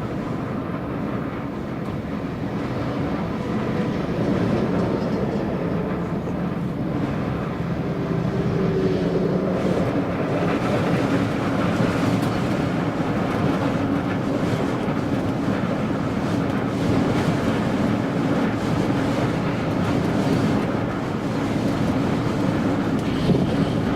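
Vehicle driving along a road, heard from inside the cab: a steady drone of engine and tyre noise that grows a little louder about four seconds in.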